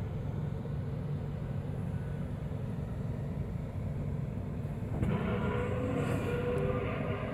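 A low, steady rumbling drone, of the kind passed around as mysterious 'strange sounds from the sky'. About five seconds in it grows a little louder and several held tones join it, like a drawn-out squeal.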